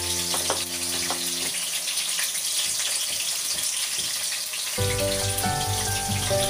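Chicken livers sizzling in hot oil in a wok, a steady hiss. Background music plays over it at the start, drops out about a second and a half in, and comes back about five seconds in.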